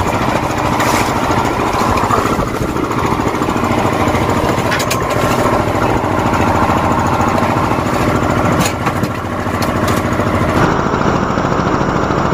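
A boat's engine running steadily with a fast, even chug, with a few short knocks over it.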